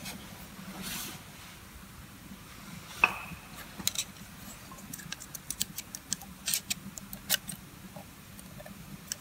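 Steel retaining ring (circlip) being worked into its groove in an all-wheel-drive coupling housing: one sharp metallic click with a brief ring about three seconds in, then a scattered run of light metal clicks.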